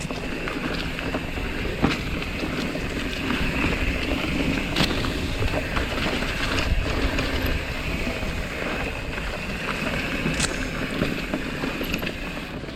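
Mountain bike riding down a dirt trail: steady tyre noise over the ground and wind on the microphone, with a few sharp clicks and knocks from the bike over bumps.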